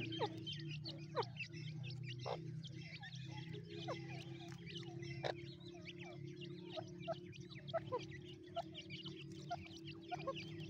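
Teetar (partridge) chicks peeping: many quick high cheeps, with a few louder peeps that fall in pitch, over a steady low hum.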